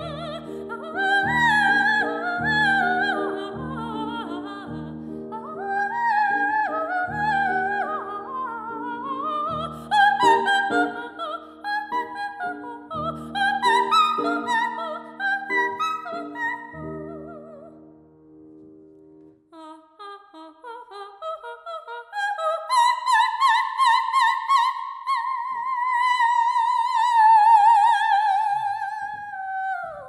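Operatic soprano singing coloratura with grand piano accompaniment: quick vocal runs over regularly struck piano chords. About two-thirds of the way through the piano stops, and the voice goes on alone with a short cadenza and a long held high note that slides down in pitch at the very end.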